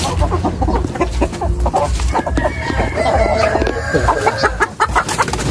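Hens clucking and squawking as they are disturbed by a hand reaching into the flock to catch one, with a longer drawn-out call about halfway through.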